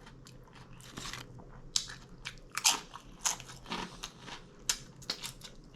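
A person chewing a mouthful of taco salad close to the microphone, with wet, irregular crunches about two or three times a second.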